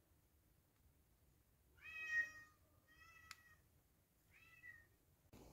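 A domestic cat meowing three times, short calls about a second apart, the first the loudest and the last faint. A sharp click cuts across the second meow.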